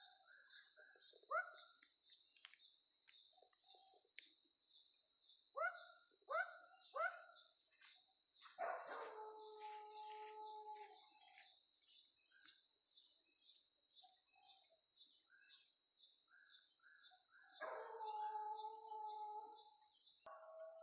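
Steady, pulsing drone of insects, with dogs yelping a few times and then giving two long howls, one about nine seconds in and one near the end.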